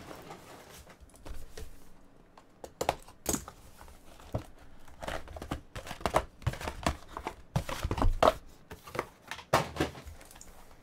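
Plastic shrink wrap crinkling and tearing as a sealed trading-card box is unwrapped, then cardboard mini-boxes being pulled out of it and set down on the table with light knocks in the second half.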